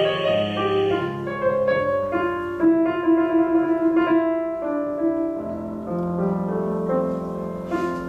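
Grand piano playing a slow, melodic instrumental interlude between the verses of a tango song: a single-note melody over sustained chords.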